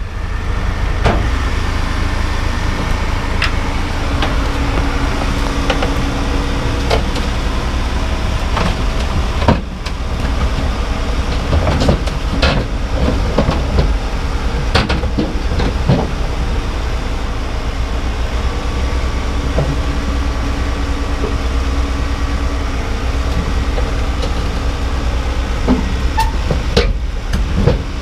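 Hino 500 truck with a Cung-style exhaust running under way, a steady deep rumble with frequent rattles and knocks over it. The sound drops out sharply and briefly about ten seconds in and again near the end.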